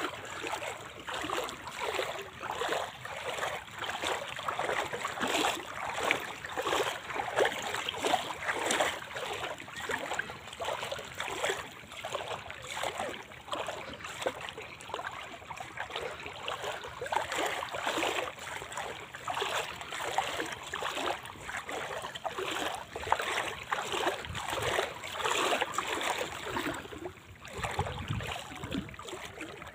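Water splashing and trickling in a close, irregular run of small splashes, as a China duari net is paid out into the river from the side of the boat.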